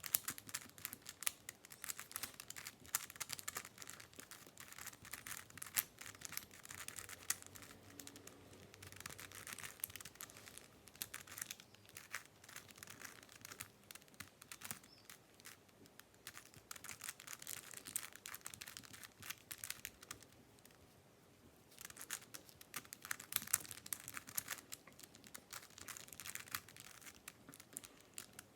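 Plastic pieces of a Killer Minx, a twelve-sided twisty puzzle, clicking and clattering as its faces are turned in quick, dense runs, with a short lull about twenty seconds in.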